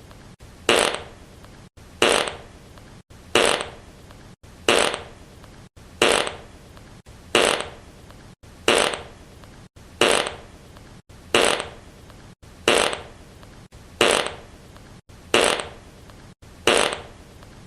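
Fart sound effect looped: the same short fart repeats about every 1.3 seconds, each one starting sharply and tailing off, with a brief silent break before the next.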